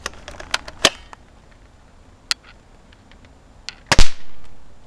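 A snapper (Pop-It) fixed to a Nerf dart goes off with one sharp crack about four seconds in, echoing briefly as it fades. Several lighter clicks and taps come before it.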